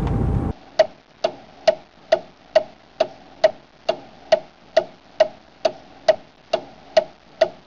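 Low rumble of a car interior that cuts off abruptly about half a second in. It is followed by a steady clock-like ticking, a little over two ticks a second, evenly spaced.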